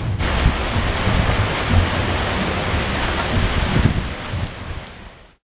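Heavy thunderstorm downpour: a steady rush of rain with low rumbles underneath. It fades out over the last second or so.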